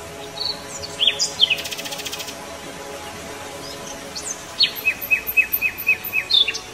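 Birds chirping over a soft, steady music background: a few chirps about a second in, a brief buzzy trill just after, and a quick run of about six short chirps near the end.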